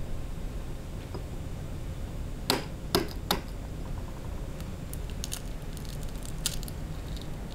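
A small quail egg is knocked three times in quick succession against a hard edge to crack the shell. A few seconds later come light crackling clicks as fingers pull the shell apart.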